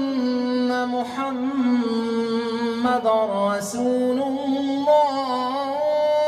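Background music: a voice singing ornamented, chant-like lines over a steady sustained drone.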